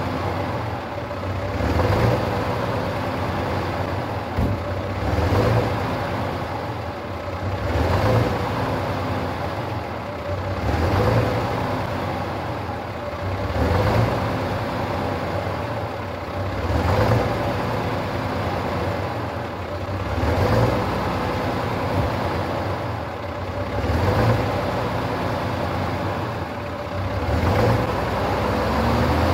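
Star 200 truck's cold six-cylinder diesel running at a fast idle just after a winter cold start, with engine speed swelling and falling about every three seconds. The owner calls the injection pump sections and injector needles of this old engine very tired.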